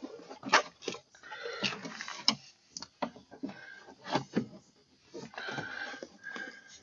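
Scattered clicks and knocks of a plastic car door panel and its retaining clips being worked loose by hand, with two brief drawn-out higher sounds about a second in and again near the end.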